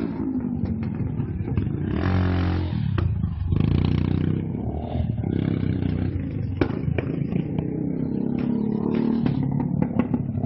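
Sport motorcycle engine revving hard, its pitch rising and falling repeatedly, with a few sharp clicks in the second half.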